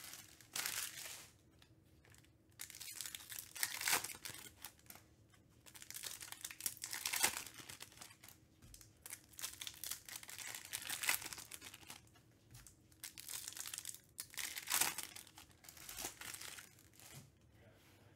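2021 Topps Allen & Ginter Chrome trading-card pack wrappers being torn open and crinkled, in about six short bursts a few seconds apart.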